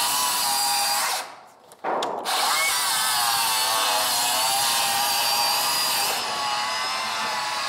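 Cordless circular saw ripping a pine board lengthwise, the blade's whine wavering in pitch under load. It stops briefly about a second in, then starts again and cuts on steadily.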